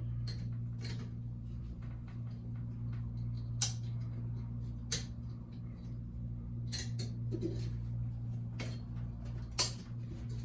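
Scattered sharp clicks and taps of electrical cable and metal parts being handled as the wires are pushed into a clip-in cable clamp, over a steady low hum. The sharpest click comes near the end.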